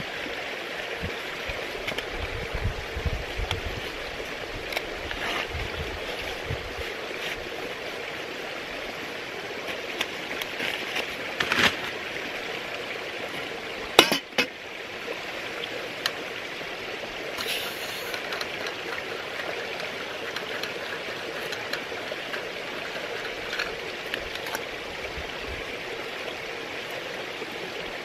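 Titanium mug lifted off a small gas backpacking stove, with a sharp metallic clink about fourteen seconds in and lighter clinks around it, over a steady rushing hiss.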